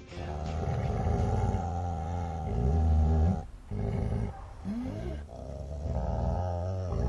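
Dog growling in long, deep rumbles, broken by a short pause about three and a half seconds in.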